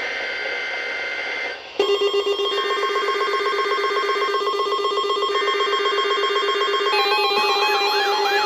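NOAA Weather Radio SAME alert header: three short bursts of high warbling digital data tones about a second apart. From about two seconds in, a loud steady buzzing alarm tone sounds over them, and near the end a warbling, siren-like alarm tone joins it as the weekly test activates the alarms.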